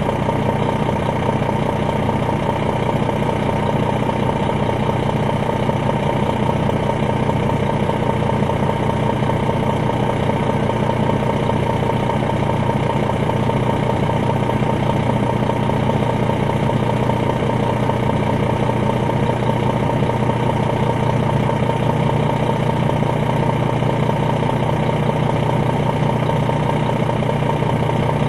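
Detroit Diesel Series 60 engine of an MCI D4000 coach running steadily, heard from inside the bus, with a constant whine above the engine note.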